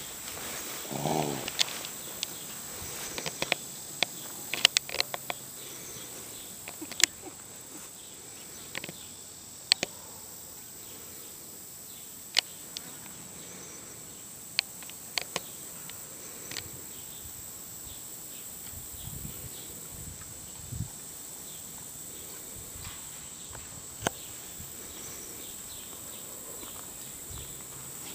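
A horse grazing on pasture: scattered sharp crunches as it crops and tears grass, clustered in the first half and sparser later. A short pitched sound about a second in.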